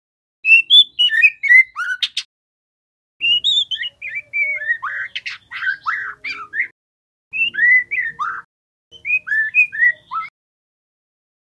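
Juvenile white-rumped shama singing: four short phrases of quick, varied whistles and chirps separated by brief pauses, with a sharp click about two seconds in. It is a young bird still learning its song.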